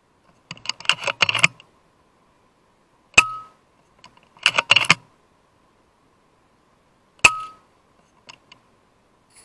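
Two shots from a .22 FX Impact M3 air rifle, about four seconds apart, each a sharp crack followed by a short metallic ring. Before each shot comes about a second of rapid metallic clicking, and a couple of faint clicks follow near the end.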